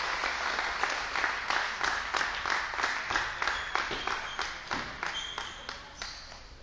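A few people clapping in a sports hall, the applause fading away to nothing over several seconds.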